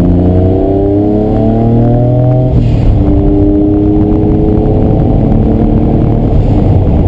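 Noble M500 engine at full throttle heard from inside the cabin, pitch climbing through a gear, dropping sharply on an upshift about two and a half seconds in, then climbing again more slowly in the next gear.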